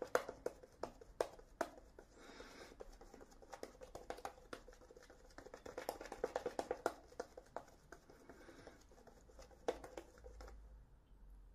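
Shaving brush working lather on a face: quick, irregular wet clicks and squishes of the bristles through the lather, with a denser run of strokes about halfway through. The brushing stops near the end.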